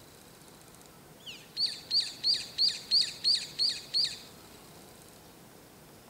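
Brown-eared bulbul calling: a short rising note about a second in, then a fast run of about eight high-pitched, sharply swept notes at roughly three a second, ending a little after four seconds in.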